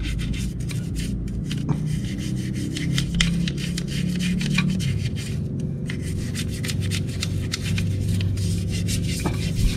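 Paintbrush bristles scrubbing the grimy metal CVT case of a Yamaha NMAX scooter in quick, repeated scratchy strokes.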